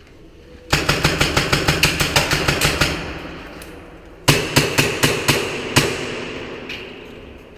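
Airsoft gun firing two full-auto bursts at about ten shots a second: a longer one of roughly two seconds, then a shorter one about a second and a half later, each with an echoing tail.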